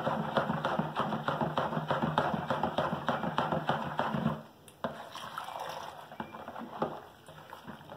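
Long-handled spoon beating a foamy homemade liquid laundry soap mixture fast in a plastic bowl: a rapid, even clatter and slosh that stops abruptly about halfway through. After it come a click and quieter sloshing with a few light taps.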